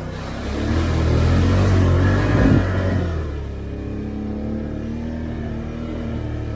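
Can-Am Outlander 850 ATV's V-twin engine accelerating, louder for about two and a half seconds with a thump near the end of that surge, then settling back to a steady, lower throttle.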